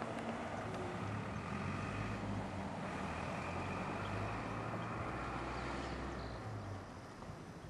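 A motor vehicle engine running steadily with a low hum, easing off near the end.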